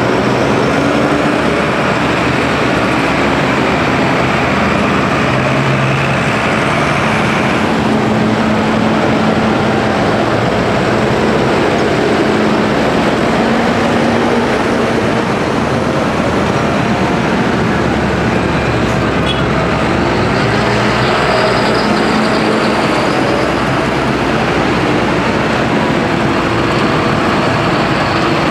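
Diesel engines of large farm tractors, Fendt Vario and John Deere, running as they drive past one after another in a slow convoy. The sound is a loud, steady drone whose engine note shifts every several seconds as one tractor follows another.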